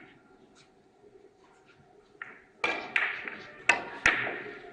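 Billiard balls clacking together, four sharp strikes in about a second and a half in the second half, each ringing briefly in the large hall.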